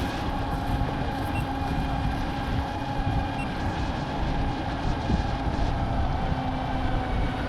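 Wind buffeting the microphone: a steady, choppy low rumble, with a faint steady hum underneath.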